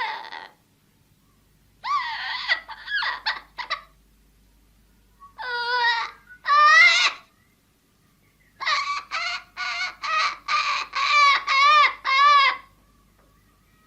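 Parrot calling: a short cluster of calls, then two single longer calls, then a quick run of about ten short wavering calls, with brief silences between the groups.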